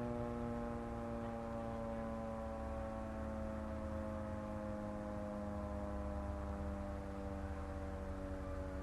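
Federal 3T22 three-tone outdoor warning siren sounding its steady dissonant chord for the noon test, the pitch sagging slowly lower.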